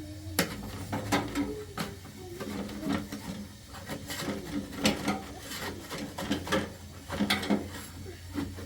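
Irregular knocks and clatter of household objects being handled, over a steady low hum.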